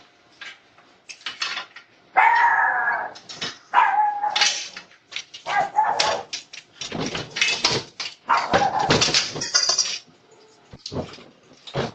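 A dog barking and whining in a run of short calls, a few of them drawn out for about a second.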